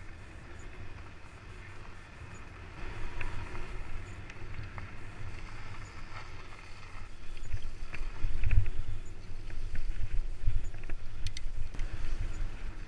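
Wind buffeting the microphone of a bike in motion, loudest about eight seconds in, over the tyre noise and small rattles and clicks of a Surly Mukluk fat bike rolling along a gravel path.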